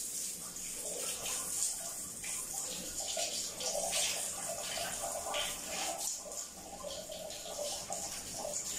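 Handheld bidet sprayer jetting water onto a toilet seat and into the bowl: an uneven hiss of spray with splashing.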